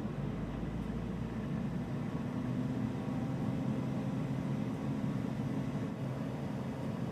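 Benchtop laboratory centrifuge spinning up to 4,000 rpm, its motor and rotor giving a low hum that grows slightly louder over the first couple of seconds and then holds steady at full speed.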